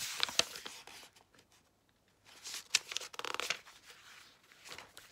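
Paperback book pages rustling as they are handled and turned, in two short bouts: one right at the start and one about halfway through.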